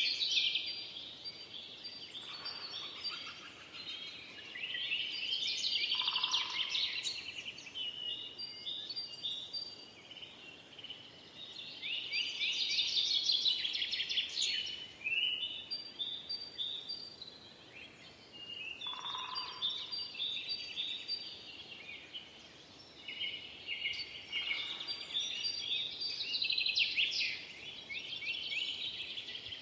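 Several forest songbirds singing together, quick trilling and chirping phrases in bursts every few seconds, with a lower, shorter call heard now and then.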